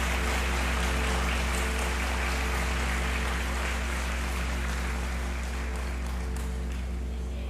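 Gong and singing bowls ringing on together after being struck: a deep, steady hum with several held tones beneath a shimmering wash, slowly fading.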